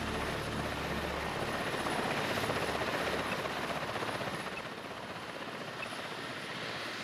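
Helicopter in flight, heard from inside the cabin: steady rapid rotor-blade chop over engine noise, easing slightly in the second half.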